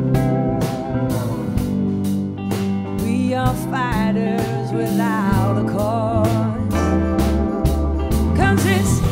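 Live blues-rock band playing a slow song: a woman singing lead over electric guitars, keyboard and drums with a steady beat.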